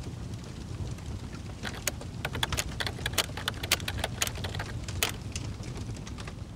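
Fire burning in a fireplace: a low steady rumble with a run of sharp crackles and pops through the middle, fading toward the end.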